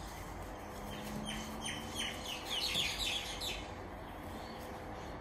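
A bird calling: a run of short, falling chirps that come quicker and louder about two and a half seconds in, then stop.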